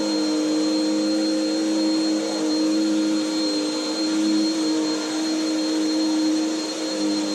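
Bissell PowerClean Swivel Rewind Pet upright vacuum cleaner running steadily: a constant motor drone with a thin high whine over it.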